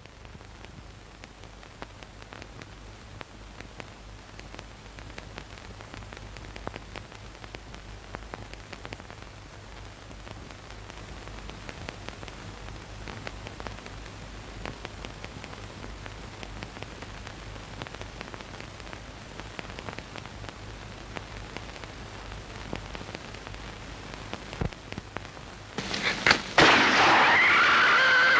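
Hiss and dense crackle of an old film soundtrack with a low steady hum and no programme sound. About two seconds before the end, a much louder sound cuts in abruptly.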